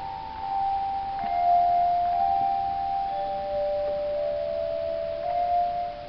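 Handbell choir ringing a slow melody: single bell notes struck one after another, each ringing on for a couple of seconds and overlapping the next.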